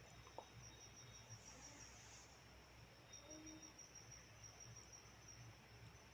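Near silence with a faint, steady, high-pitched pulsing trill of a cricket in the background, over a low hum.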